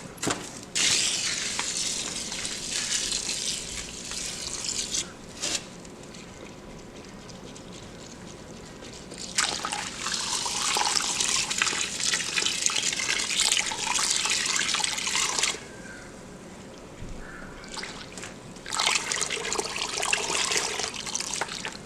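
Water from a hot water hose running into a bucket of chicken feed, in three spells of a few seconds each with short pauses between.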